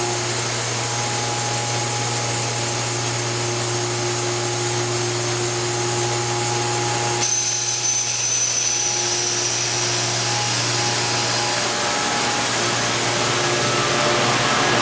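Plastic-film factory machinery running steadily: resin-pellet suction conveying and blown-film extrusion lines, a continuous hum with a few held tones. About seven seconds in, the mix changes and a high whine comes in.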